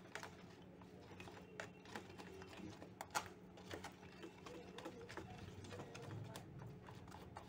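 Faint clicks and scrapes of a spoon stirring PVA granules into formalin in a plastic tub, with a couple of sharper taps about three seconds in, over a faint low hum.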